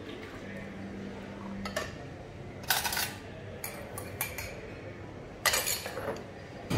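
Small ceramic bowls clinking and knocking against each other and the blender jug as dressing ingredients are tipped in and the empty bowls are stacked. A few separate clinks, with two short clusters near the middle and near the end.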